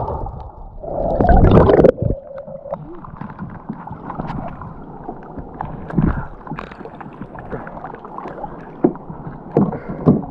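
Camera housing surfacing through water: a rising rush of water about a second in that cuts off suddenly. This is followed by water dripping and splashing off a speargun and scattered light knocks of gear against a plastic kayak, the loudest a few seconds later and near the end.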